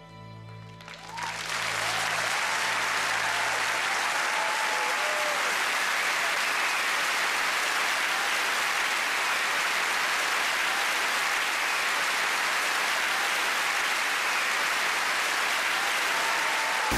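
Large audience applauding steadily, breaking out about a second in as the music's last notes fade, with a few cheers over the clapping.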